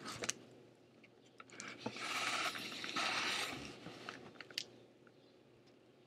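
Rustling and scraping of a cardboard mailing box being picked up and handled close to the microphone, with a few sharp clicks. It runs for about three seconds in the middle.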